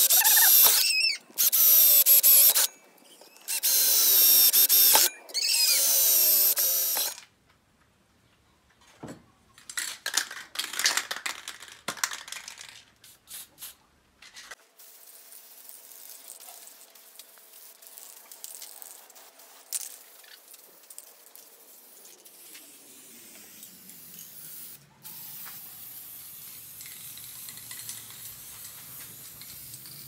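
Electric drill boring through a steel bracket on a gas tank in four loud bursts, the bit squealing as it cuts. Later a fainter, steady hiss of an aerosol spray-paint can being sprayed.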